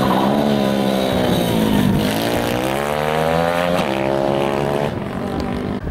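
160cc pit bike engine passing close: its pitch falls, then climbs as the bike accelerates out of the corner. About four seconds in the pitch drops suddenly as it shifts up, and then the sound fades as the bike pulls away.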